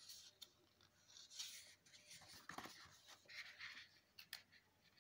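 Faint rustling of paper pages and a few soft clicks as a large picture book's pages are turned by hand.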